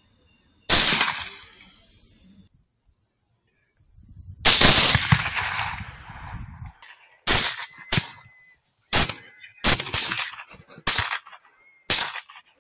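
Rifle shots: two single shots, each followed by a long fading echo, about a second and about four and a half seconds in, then a fast string of about eight shots over the last five seconds.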